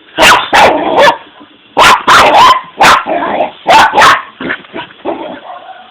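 A dog barking loudly, about nine sharp barks in quick groups of two or three, dying down to quieter sounds after about four and a half seconds.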